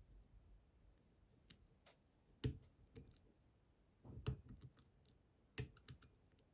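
Faint, sparse clicks of a lock pick working the pin tumblers of an IZIS Bramah-style pump lock, with a sharper click about two and a half seconds in and a few more in the second half.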